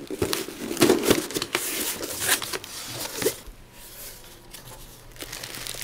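A cardboard parcel being torn open: quick rips, rustles and crinkles of paper and packaging, busiest in the first three seconds, then quieter handling.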